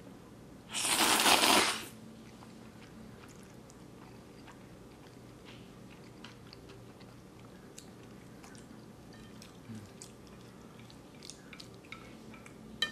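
A loud slurp of saucy instant black bean noodles, lasting about a second, then quiet chewing with faint wet mouth clicks and a few sharper clicks near the end.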